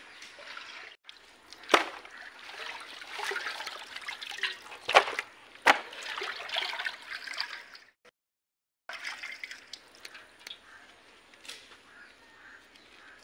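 Water sloshing and splashing in a steel pot as whole pomfret fish are washed by hand, with three sharp knocks. The sound breaks off about 8 s in and comes back fainter.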